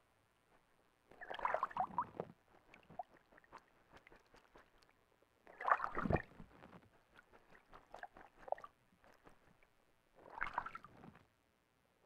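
Ural owl bathing in a shallow pool, splashing water with its wings in three bursts about four seconds apart, with smaller splashes and drips between.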